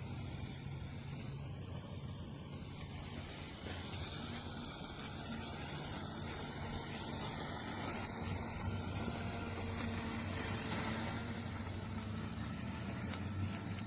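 Mammotion Yuka Mini robotic lawn mower running, its electric motors giving a steady hum as it mows, growing a little louder in the second half.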